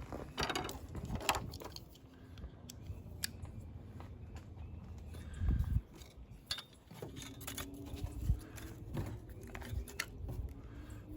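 Scattered clicks, taps and rustles of things being handled, with a few low thumps about halfway through. A faint steady drone comes in during the second half and rises slowly in pitch.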